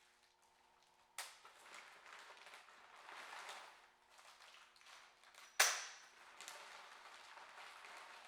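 Bags of metal nuts and bolts being handled: faint rustling with a few sharp clicks, the loudest about five and a half seconds in with a brief metallic ring.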